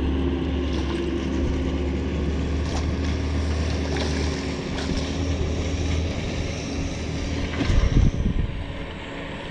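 Boat motor running steadily with a low hum, wind noise on the microphone, and a few loud low thumps about eight seconds in.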